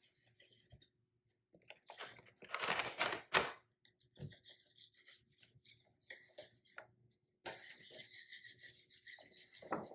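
A plastic applicator rubbed in short, irregular scraping strokes over perforated vinyl on window glass, pressing the decal down onto the glass. About seven and a half seconds in, the rubbing turns into a steadier, hissier stroke lasting about two seconds.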